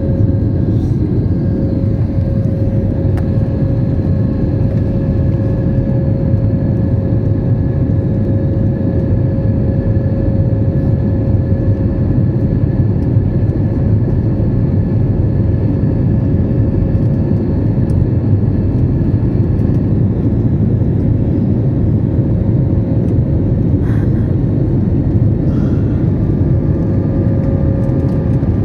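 Jet airliner cabin noise at a window seat in flight: the steady rush of engines and airflow, deep and even, with a faint steady whine that drops away for a few seconds near the end and comes back.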